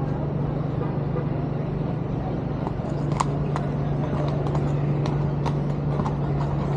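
City street traffic heard from a moving bicycle: a steady hum and noise of vehicles. About three seconds in, a run of irregular sharp clicks or knocks starts, several a second.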